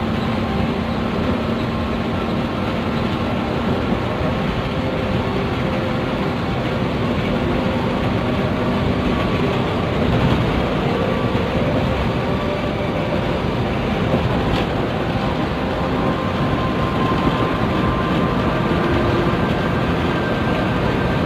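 An intercity coach bus on the move: a steady engine and road rumble with faint whining tones running through it.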